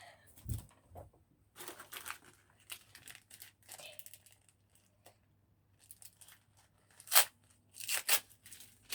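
Packaging being torn open and crinkled by hand: a run of short rips and rustles, the two loudest about seven and eight seconds in, with a low knock about half a second in.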